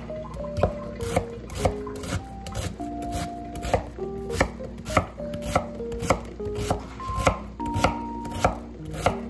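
Chef's knife chopping an onion on a wooden cutting board, sharp strokes about twice a second, over light background music.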